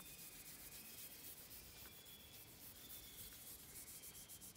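Faint scratchy rubbing of a paintbrush scrubbing gel stain into the grainy texture of a fiberglass door, in short repeated strokes.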